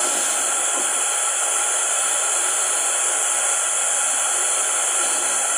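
Steady radio static hiss from a Philips RR-498 boombox's speaker, tuned between stations.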